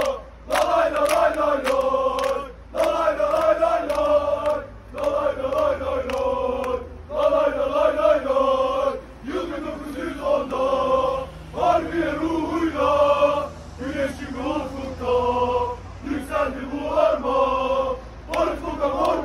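A group of men chanting a football supporters' song in unison, unaccompanied, in sung phrases of a second or two with short breaks between them.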